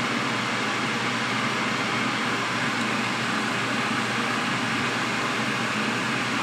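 Steady hiss of chicken and sauce bubbling in a wok over high heat, with a faint low hum beneath.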